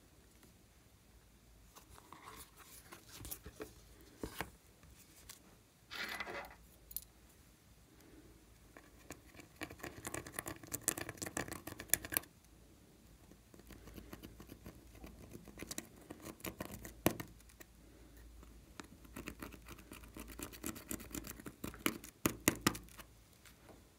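Pressed eyeshadow being scraped out of a palette pan with a small metal tool: rapid scratchy clicking in two long spells, with a few separate knocks and handling sounds before it.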